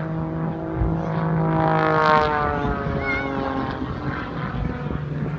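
An aerobatic propeller plane's piston engine drones overhead. Its pitch rises and then slides back down in the first couple of seconds as the aircraft manoeuvres.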